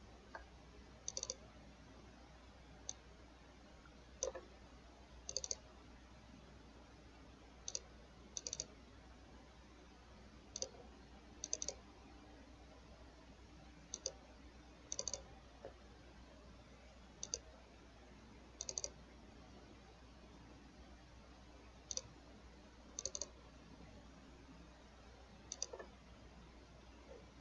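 Computer mouse clicking, often in quick double clicks, every second or two over a faint low hum.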